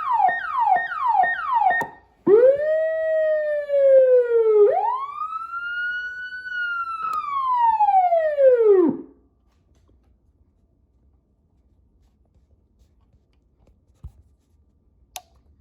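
Federal Signal PA-15A Director electronic siren in fast yelp, with quick sweeps a few times a second. After a brief break it gives slower irregular rising and falling sweeps, climbing twice, then winds down to a stop about nine seconds in. A couple of faint clicks follow near the end.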